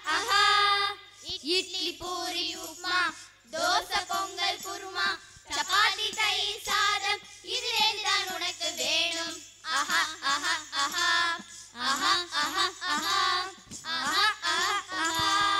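A group of girls singing a Tamil song together into microphones, one melody line in long held, gliding phrases with short breaks between them.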